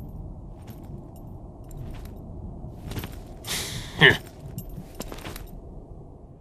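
Foley of a heavy iron chain jangling: faint scattered clinks, then a louder metallic rattle and clink about four seconds in, over a steady low ambient rumble.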